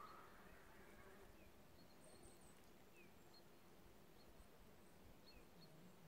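Near-silent lakeside ambience: a faint hiss with small, short high chirps from birds or insects every second or so, over a faint low hum.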